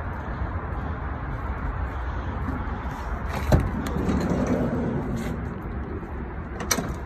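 A van's sliding side door unlatches with a sharp click about three and a half seconds in, then rumbles open along its track. A second click comes near the end, over steady background noise.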